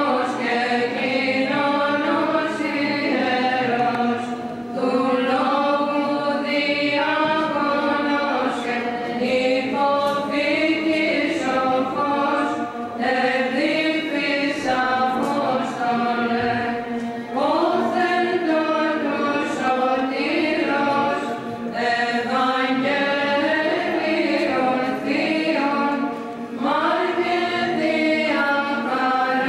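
Orthodox liturgical chant: voices singing a slow, winding hymn line in long phrases over a steady held low note, with short breaks between phrases.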